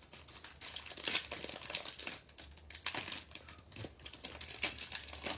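Foil wrapper of a 2022 Topps Series 1 baseball card pack crinkling and tearing as it is ripped open by hand, in many irregular crackles.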